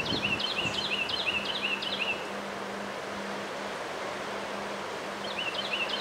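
Strong wind rushing steadily through bare treetops. A bird sings a quick run of repeated high notes in the first two seconds and again near the end, over a faint steady low hum.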